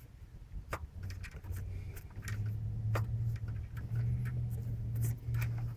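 Irregular sharp clicks of an aluminium piston in a Volvo B230 four-cylinder engine knocking against its cast-iron cylinder wall as it is rocked in the bore with the head off: piston slap. A steady low hum runs underneath and grows louder after about a second.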